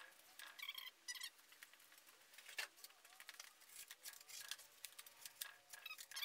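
Faint, repeated short slicing and scraping sounds of a hand-forged 52100 steel knife blade cutting strips off a piece of cardboard.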